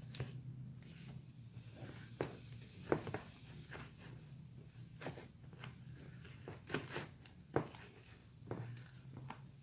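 Faint, irregular clicks and soft crackles of a foam-bead and glue slime mixture being stirred in a bowl, over a steady low electrical hum.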